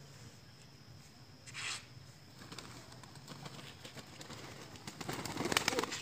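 Domestic pigeons' wings flapping and clapping as they fly in and land, a quick flurry of sharp flaps near the end; before that only a faint steady background with one short rush of noise.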